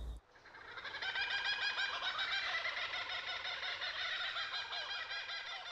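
A dense chorus of poultry calling, with many clucks and calls overlapping. It fades in over about a second and fades out near the end.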